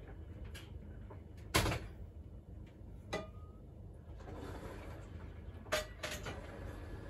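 Kitchen work at a counter: a few separate sharp knocks and clinks of kitchenware, the loudest about a second and a half in and another near six seconds, one of them with a short ringing tone.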